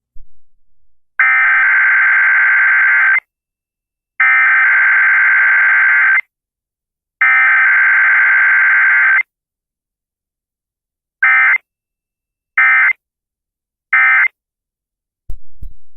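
Emergency Alert System SAME digital data tones from an FM radio broadcast's Required Weekly Test: three loud electronic warbling bursts of about two seconds each, the alert header, then three short bursts near the end, the end-of-message code. There is no long attention tone between them, as is usual for a weekly test.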